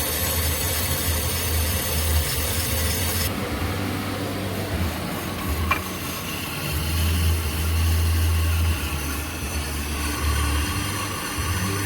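Volkswagen Fox engine running steadily with a low hum that swells and fades, turning the raised front brake disc while a knife-sharpening stone is held against it to grind off the raised lip that made the new pads squeal and catch.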